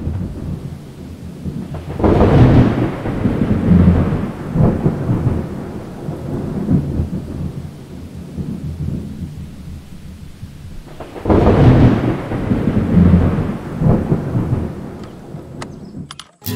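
Thunder rolling twice, first about two seconds in and again about eleven seconds in, each roll swelling several times, over a steady hiss of rain.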